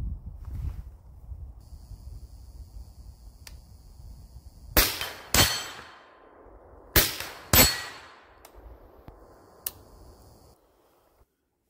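Suppressed AR-15 carbine, with a YHM Turbo K suppressor on a 16-inch barrel, fired four times as two quick pairs of shots, each pair about half a second apart and the pairs about two seconds apart.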